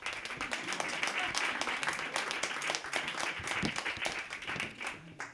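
Audience applauding, many hands clapping together; it starts at once and dies away near the end.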